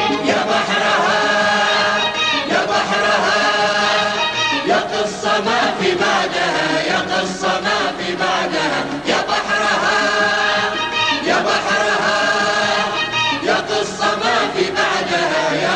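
A chorus of voices singing together with musical backing, in phrases of about two seconds each, in an Arabic-language song.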